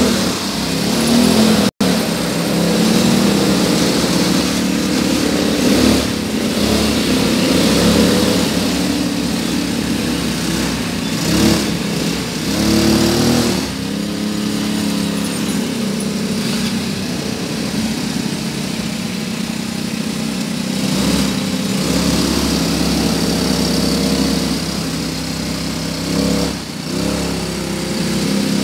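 Several 250cc ATV quad bike engines running together and being revved, the pitch rising and falling again and again as the quads pull away and ride around.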